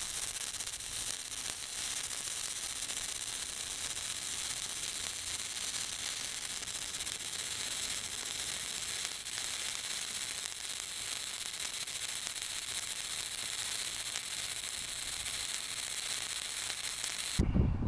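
Blue Demon 140MSI running a flux-core wire arc: a steady, even crackling sizzle as the weld is laid, stopping sharply near the end. The wire is feeding properly after a bird's nest was cleared.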